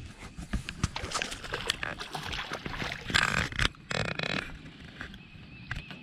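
Hooked smallmouth bass splashing at the surface beside a boat as it is played in and landed, with two louder splashes about three and four seconds in.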